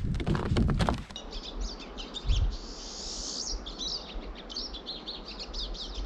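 About a second of footsteps, then a flock of pine siskins calling high in white spruces: many quick high chirps overlapping, with one longer drawn-out call a couple of seconds in.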